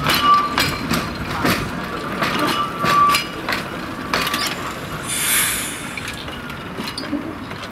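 Narrow-gauge electric double-deck tram running slowly past over curved track and points, its wheels clacking irregularly over the rail joints, with two brief wheel squeals, one near the start and one about three seconds in.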